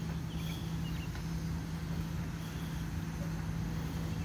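Bicycle rolling over a concrete sidewalk: a low rumble from the tyres and frame with a steady low hum underneath. A faint high chirp comes twice, about two seconds apart.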